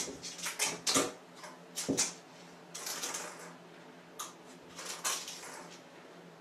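A cat's paws splashing in shallow water in an acrylic bathtub: a quick run of short splashes over the first two seconds, then a few more scattered ones.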